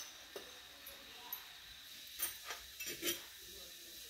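A few separate light clinks and knocks of kitchen utensils: a small steel tumbler being handled and set down, and a spoon against a bowl of batter.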